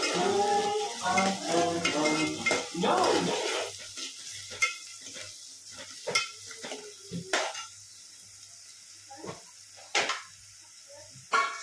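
A voice for the first three seconds or so, then a metal utensil clinking and scraping against a cooking pan as food is stirred, with light sizzling from the frying underneath.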